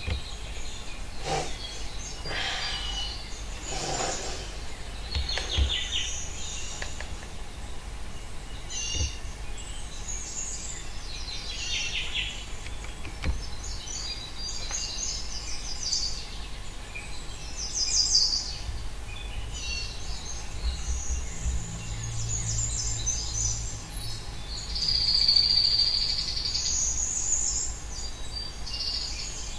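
Recorded birdsong played over the theatre's sound system: a run of short chirps and trills, with a louder buzzy call about 25 seconds in.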